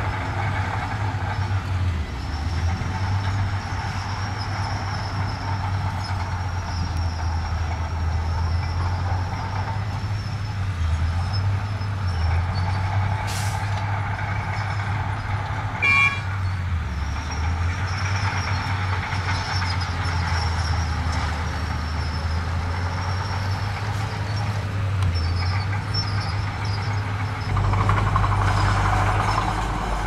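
Heavy earthmoving machinery's diesel engine running steadily at work, its low note shifting now and then. A short hiss comes about 13 seconds in, a brief high beep about 16 seconds in, and the low rumble grows louder near the end.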